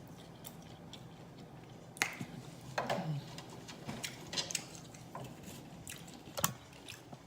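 Close-miked eating sounds: chewing with wet mouth smacks and clicks, scattered and irregular, starting about two seconds in.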